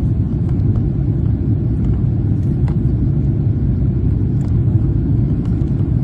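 Steady low rumble of a Boeing 777-300ER's GE90 engines and rushing air, heard inside the cabin during the climb after takeoff.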